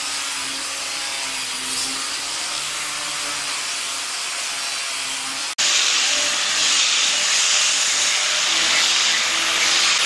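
A power tool working wood, giving a steady rushing hiss. About halfway through it drops out for an instant and comes back louder and brighter.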